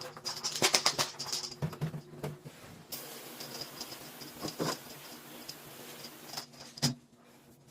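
Clicks and rattles of the air conditioner's plastic vent parts being handled, then a steady spray hiss for about four seconds as the head unit is washed, ending in a sharp click.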